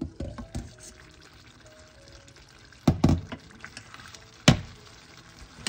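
Glass lid lifted off a stainless steel pot with light clinks, then a metal spoon stirring chicken livers in bubbling adobo sauce. Two loud, sharp clanks of metal on the pot come about three and four and a half seconds in.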